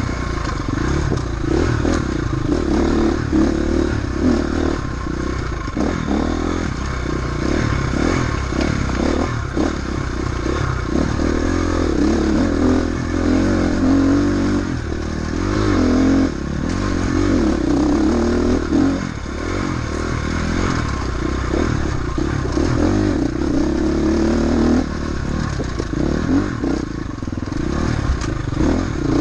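Off-road motorcycle engine running at changing throttle, its pitch rising and falling. Frequent clattering knocks run through it, from the bike over rough ground.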